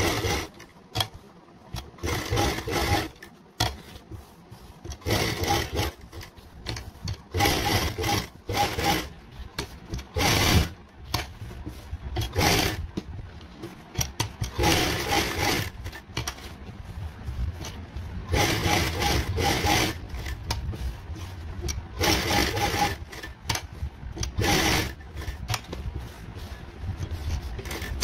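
Sewing machine stitching fabric in about a dozen short runs of a second or so each, stopping and starting between runs as the stitching line is guided along the pattern.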